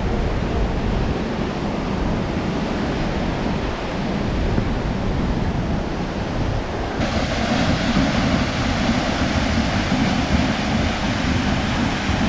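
Steady rushing roar of Vernal Fall's falling water and spray, mixed with wind buffeting the microphone. About seven seconds in the sound changes abruptly and becomes brighter and hissier.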